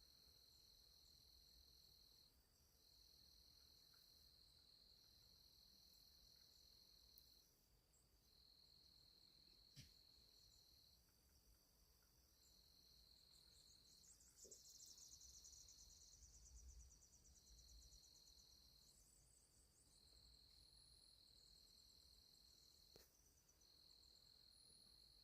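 Insects trilling in long, steady, high-pitched bouts broken by short gaps, faint overall. A single sharp knock comes about ten seconds in, a fainter one near the end, and a brief rapid buzzing call about midway.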